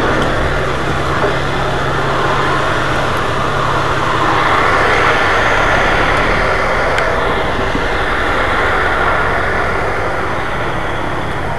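Tugboat's diesel engine running steadily during docking, a constant low hum under a dense rushing noise that swells a little midway and eases near the end.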